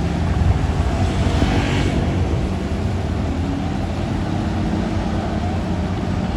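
Heavy truck's diesel engine running steadily with a low rumble, with a brief hiss about one and a half seconds in.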